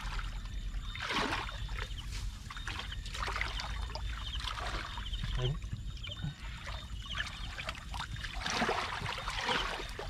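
Water splashing and sloshing in several uneven surges, the biggest about a second in and again near the end, over a steady low hum.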